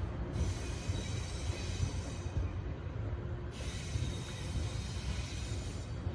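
Electric train on the track, a steady low rumble, with two bursts of high hiss about two seconds each, one starting just after the beginning and the other about three and a half seconds in.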